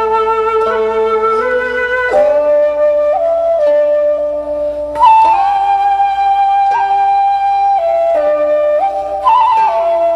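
Slow background music led by a flute, playing long held notes that change every second or two.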